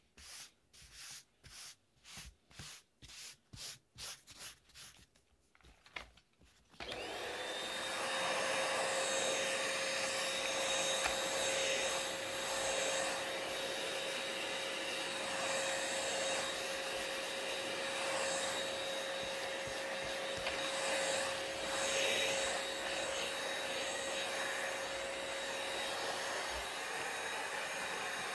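Brisk brush strokes, about two a second. About seven seconds in, a corded stick vacuum cleaner switches on and runs steadily with a constant whine.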